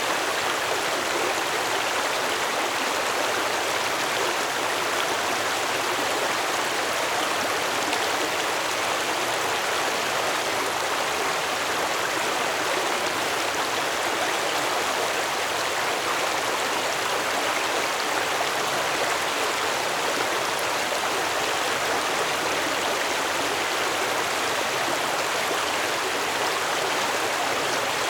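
Stream water flowing over rocks in a steady, even rush with no breaks.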